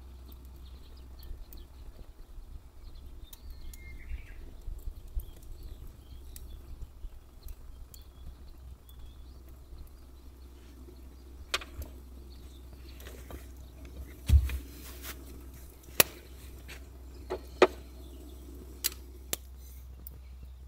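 Split firewood crackling in a small stainless box-type wood stove under a kettle: scattered small ticks and snaps, with a few sharp, louder pops in the second half, over a steady low rumble.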